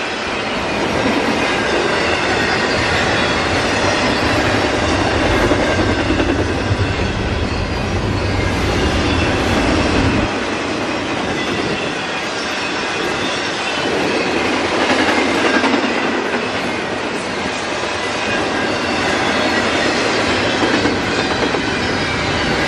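Double-stack intermodal freight train cars rolling steadily past, wheels running on the rails. A deep low rumble is strong at first and drops away about ten seconds in, leaving the higher rolling noise.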